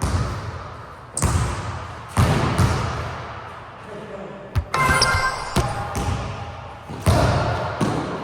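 A basketball hitting hard surfaces several times: sharp thuds and bounces, each one ringing out in a large echoing room. There is a short squeal about five seconds in.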